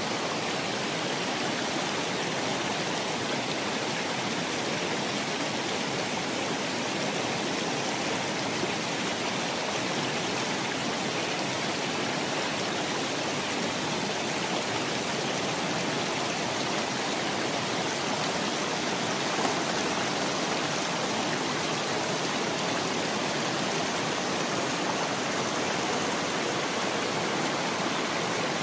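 River water rushing over rocks in rapids, a steady, unbroken rush.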